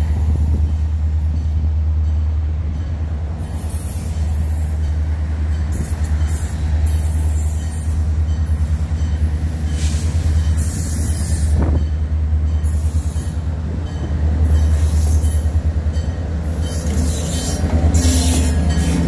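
Diesel freight locomotives running slowly with a deep, steady rumble, louder as the lead unit draws alongside near the end, with brief high squeals from the wheels now and then.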